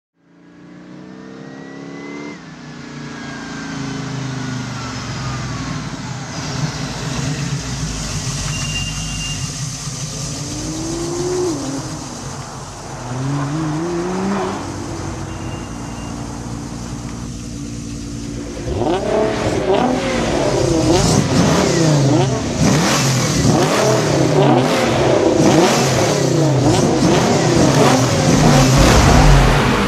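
Sports car engines idling and revving, with rising revs partway through; from about two-thirds of the way in several engines blip and rev hard over one another, getting louder toward the end.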